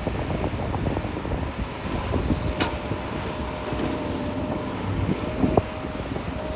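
Large excavator at work: a low engine rumble with a steady whine, and a couple of sharp clanks, about two and a half seconds in and again near the end.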